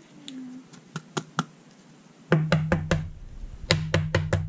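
A few soft clicks, then two quick runs of four or five sharp taps each, about a second apart: a baseball card in a clear plastic holder being tapped against the tabletop.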